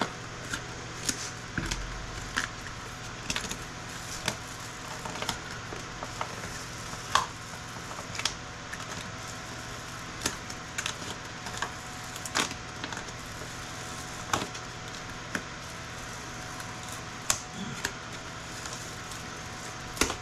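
Irregular sharp clicks and snaps of components being pried and broken off scrap circuit boards, with the boards being handled. A steady low hum runs underneath.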